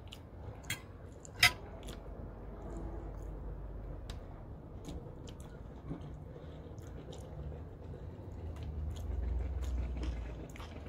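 Eating grilled steak: faint chewing and meat being torn apart by hand, with two sharp clicks of a fork on the plate in the first two seconds. A low rumble swells near the end.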